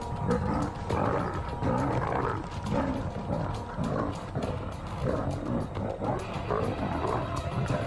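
Lionesses snarling and growling repeatedly in a close-quarters scuffle, a dominance clash that is more show than a real attack. Soft background music plays beneath.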